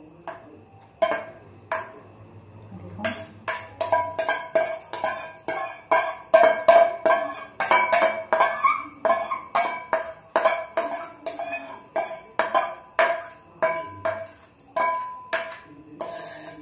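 Steel spoon repeatedly knocking and scraping against the inside of a stainless steel bowl, each strike making the bowl ring, about two to three strikes a second, while the last of the chhana curds are scraped out into a straining cloth.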